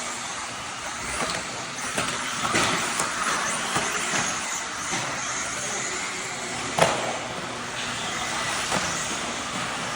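Radio-controlled off-road race cars running around a dirt track: a steady high motor whine and tyre noise that rises and falls as the cars speed up and slow down. A few sharp knocks come through, the loudest a little before seven seconds in.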